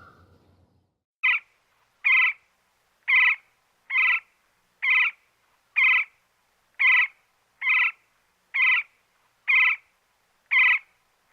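An animal giving a run of about eleven short, identical, high-pitched calls, evenly spaced at about one a second.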